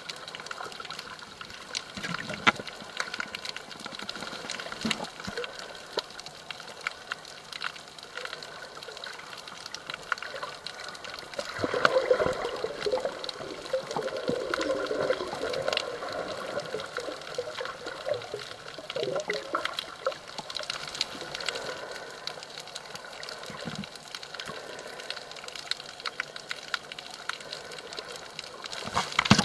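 Underwater sound picked up by a camera held below the surface at a coral reef: water movement with a constant crackle of many small clicks. A louder, wavering gurgle comes in about twelve seconds in and lasts a few seconds.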